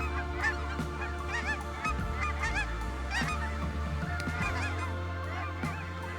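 A flock of geese honking, many overlapping calls, with background music and a steady bass line underneath.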